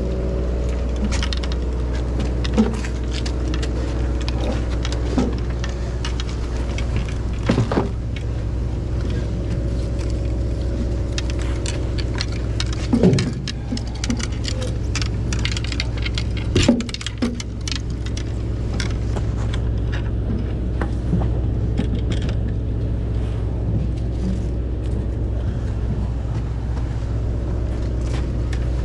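Fishing boat's engine running with a steady low drone. Scattered clicks, knocks and clatter sound over it, with louder clatters about thirteen and seventeen seconds in.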